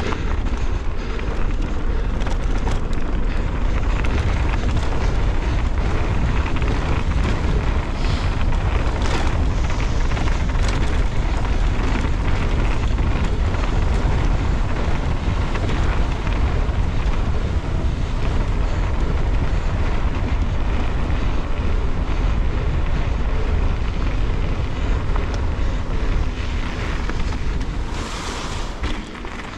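Wind buffeting an action camera's microphone during a fast mountain-bike descent on a dirt trail, mixed with tyre noise on the loose surface and short knocks and rattles from the bike. The rush eases off a little near the end.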